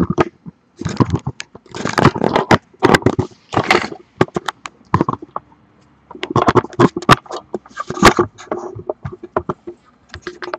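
Irregular bursts of rustling and scraping close to the microphone, mixed with sharp clicks: handling noise from the camera being moved around the workbench.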